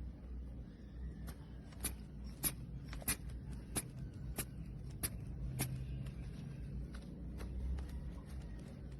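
Rubber inflation bulb of an aneroid blood-pressure cuff squeezed over and over, a sharp click about every two-thirds of a second as the cuff is pumped up, over a faint steady low hum.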